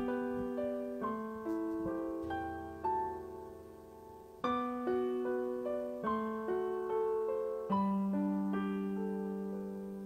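Slow piano prelude played on a digital keyboard: chords and single melody notes struck and left to ring and fade, a new one every second or so.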